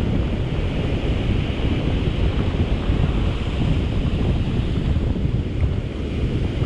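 Ocean surf breaking and washing up over the sand at the water's edge, a steady rushing noise, with wind buffeting the microphone.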